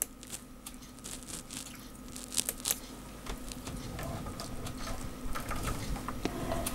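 Scattered soft clicks and light rustling from hands working a computer keyboard, over a steady faint hum.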